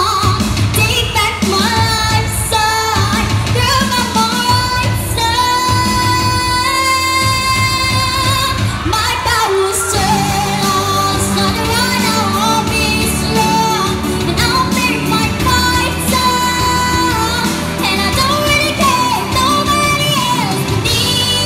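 A young girl singing into a handheld microphone over backing music, holding long notes in a flowing melody.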